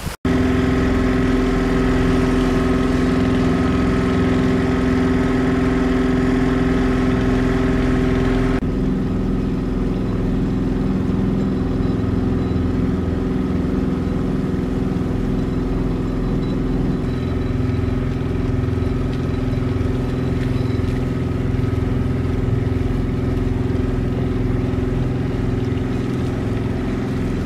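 A sailboat's small auxiliary engine motoring along with a steady, even drone; the tone shifts slightly about nine seconds in and again near seventeen seconds.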